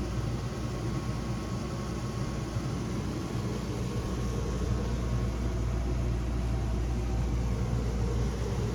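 A 15,000 BTU RV rooftop air conditioner running with a steady hum and rush of air; it grows a little louder about halfway through.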